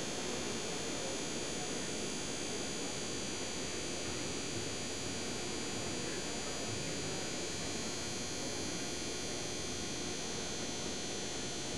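Steady ambience of a large indoor arena: an indistinct murmur of spectators under a constant hiss and faint steady high tones, with no distinct events.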